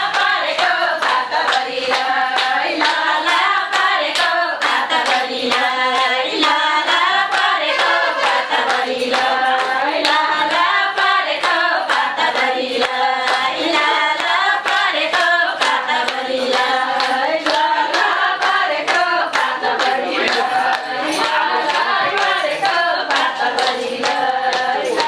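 Group of women singing a Nepali folk song together, with steady hand clapping keeping the beat at about two claps a second.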